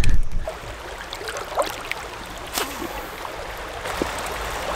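Creek water running steadily over shallow riffles. A low thump of camera handling comes at the very start, and a few faint ticks stand out over the water.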